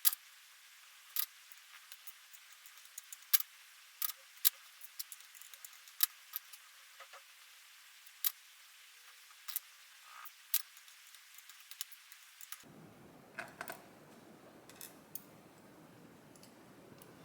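Light, sharp metallic clicks and taps at irregular intervals as a West 917 high pin count lock is taken apart: small pins and pick tools clinking against the lock body.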